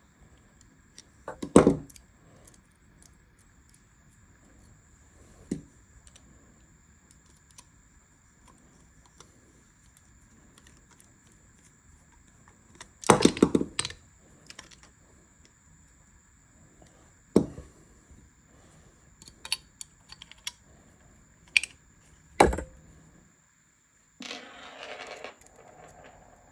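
Small steel revolver parts and tools clicking and clinking against each other and the bench during reassembly of a Remington New Model Army cap-and-ball revolver's lockwork. The knocks are sharp and scattered, the loudest about a second and a half in, a cluster around the middle, and several more near the end, followed by a short scraping rustle.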